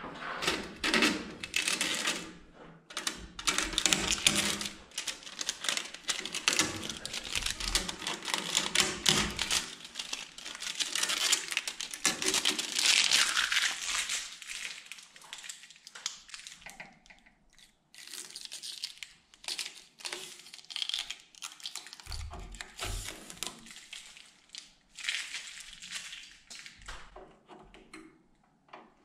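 Blue tape and protective plastic being peeled off the louvers of a wall-mounted electric shop heater: irregular crinkling and tearing, busiest in the first half and sparser later.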